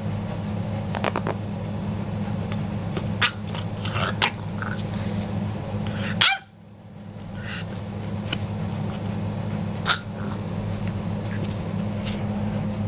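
French bulldog puppy grumbling in short, scattered barks and yips, a cranky, complaining display.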